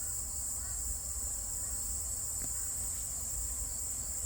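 Steady high-pitched chorus of crickets, with a faint low rumble underneath.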